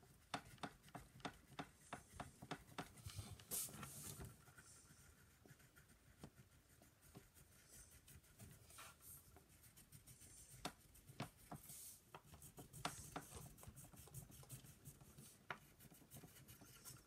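Faint scratching of colouring on paper: many short strokes and light ticks, busiest in the first few seconds.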